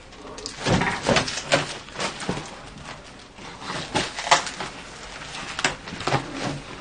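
Irregular rustling and light knocks, about a dozen at uneven spacing, from movement and handling among heaped clothes, paper and debris.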